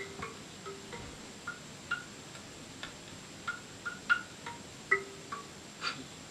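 Soft, sparse chime-like music: single light notes about two or three a second on a few recurring pitches, over a faint steady hiss.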